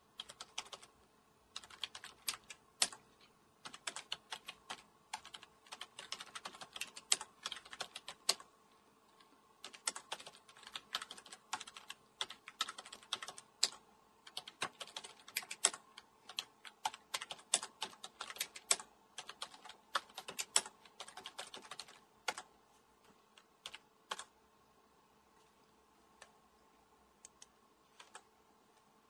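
Typing on a computer keyboard: quick runs of key clicks with short pauses, thinning to a few scattered keystrokes for the last few seconds. A faint steady hum lies underneath.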